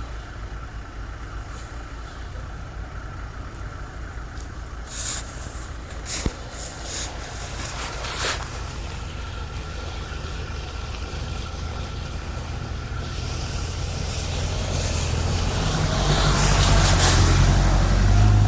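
A motor vehicle's engine running, growing steadily louder over the last few seconds as it comes closer or works harder, with a few sharp knocks in the middle.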